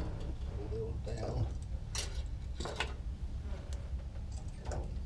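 A few separate light clicks and rattles of metal hooks and wire hangers being handled on a pegboard, over a steady low hum.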